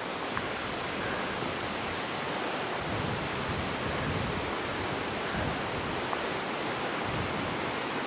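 Steady rushing of a river flowing through the valley below, with a few soft low thumps from footsteps while walking.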